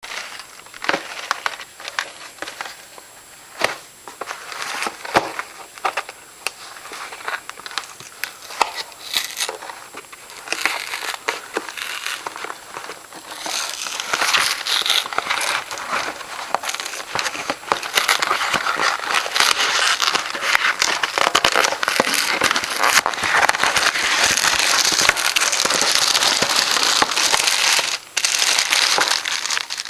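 Crinkling and crackling of plastic packaging being handled, as when a frozen pizza is unwrapped. There are scattered sharp crackles at first, then a dense, continuous crinkling from about halfway through.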